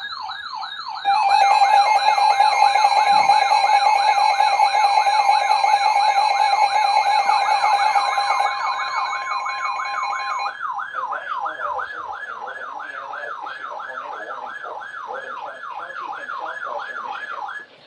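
Tornado warning alert tones: a fast warbling siren sweep, about three sweeps a second, runs throughout. About a second in, the steady two-tone Emergency Alert System attention signal joins it, louder, and stops around ten seconds in while the warble carries on.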